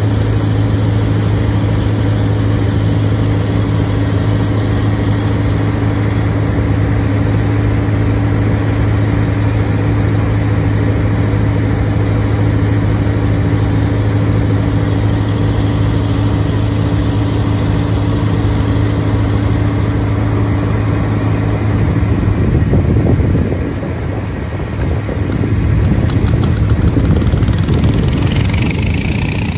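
An engine running steadily at one even pitch; about three quarters of the way through, its note turns rough and uneven.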